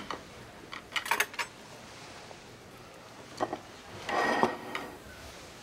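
Dishes and cutlery clinking: a few sharp clinks, then a longer clatter with a brief ringing tone about four seconds in.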